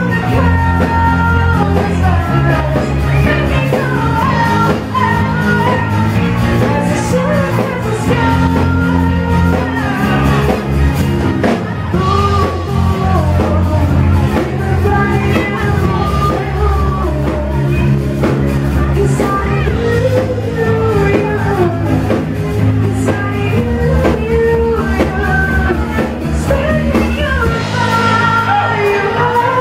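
A live band plays a pop-rock song while a woman sings the lead into a handheld microphone, amplified through the PA. Steady bass notes run under the sung melody at a constant loud level.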